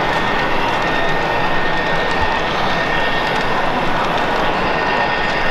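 HO scale model diesel locomotives running with onboard sound: a steady engine drone with a constant high whine.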